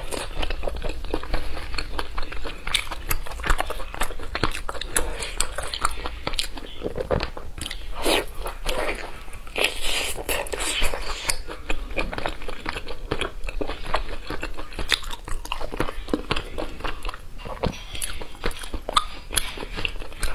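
Close-miked chewing and biting on braised pig trotter, with a steady run of wet, sticky mouth clicks and lip smacks and occasional crunchy bites. A faint low hum sits underneath.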